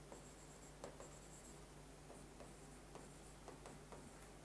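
Faint chalk writing on a blackboard: scattered short scratches and taps of the chalk as words are written, over a steady low electrical hum.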